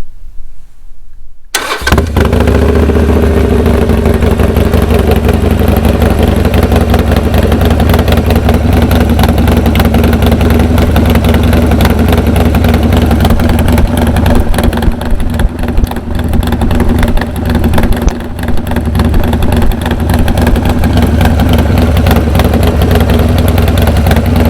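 Harley-Davidson Sportster Roadster's air-cooled 1200 cc V-twin, fitted with a Vance & Hines Upsweep 2-into-1 exhaust, starting about a second and a half in and then idling steadily.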